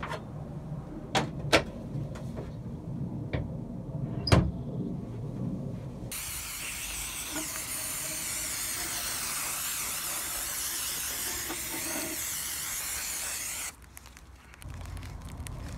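A few sharp knocks in the first half, the loudest about one and a half and four seconds in, then an aerosol spray can hissing in one continuous spray for about seven seconds over the removed valve cover.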